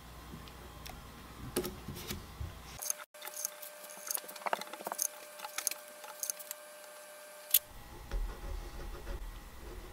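Scattered small clicks, taps and rubbing of hands and tools working on a maple guitar neck in a vise while masking tape is laid across the fretboard. The clicks bunch up in the middle, and the loudest is a single sharp click about three quarters of the way through.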